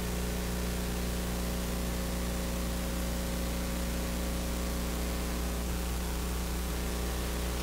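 Steady electrical hum with a constant hiss over it, the background noise of the audio feed; no singing or music yet.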